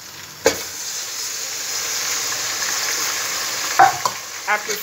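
Parboiled tomatoes poured into hot oil with frying onion, crayfish and garlic. Sizzling starts suddenly about half a second in and settles into a steady hiss.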